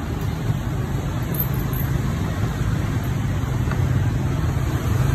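Steady low rumble and hiss of street traffic, with a constant engine-like hum underneath.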